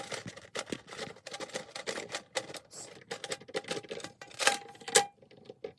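Rapid, irregular clicking and tapping of a snare drum's metal hardware being worked by hand, a screw being turned while trying to get it out. Two louder knocks about four and a half and five seconds in leave a brief ringing tone from the drum.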